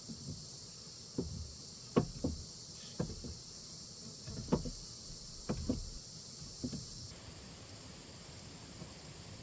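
A series of irregular knocks and thuds, about eight in the first seven seconds, some in quick pairs. Behind them is a steady high insect chorus of crickets that drops off sharply about seven seconds in.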